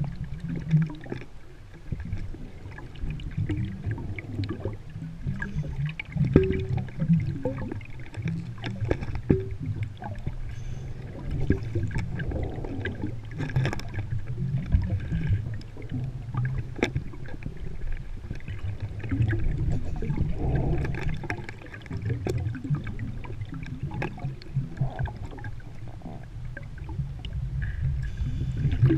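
Underwater sound of a scuba diver's breathing: gurgling rushes of exhaled bubbles recurring every few seconds over a low rumble, with scattered small clicks and knocks of gear.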